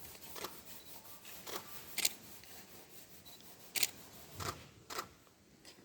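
Half a dozen short, irregular scrubbing strokes on a wooden printing block: ink being brushed onto the dry woodblock to wet it before printing.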